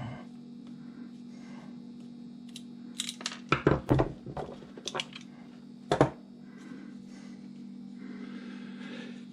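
Clicks and knocks from a garden hose nozzle and small tools being handled on a workbench during disassembly: a cluster of sharp clicks about three to four seconds in, a few lighter ones after, and one sharp knock about six seconds in, over a steady low hum.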